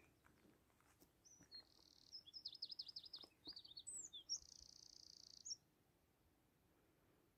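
A small songbird's short, high song, faint: buzzy trills and a run of quick rising-and-falling notes, ending in a longer buzzy trill.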